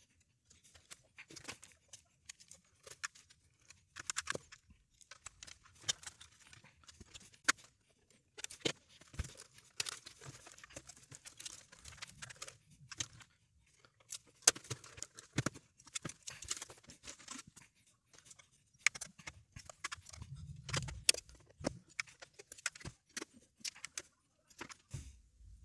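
Irregular clicks, clacks and light rattles of a compact Macintosh SE/30 being taken apart by hand: cable connectors pulled, a crinkly metal shield and chassis parts handled, and a screwdriver working on the metal chassis.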